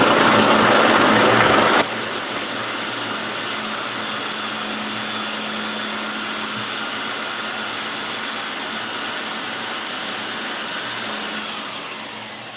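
Electric food processor motor running at speed, its blade chopping carrots to fine bits. Louder for the first two seconds, then a steady run, and near the end it winds down with a falling pitch as the motor slows to a stop.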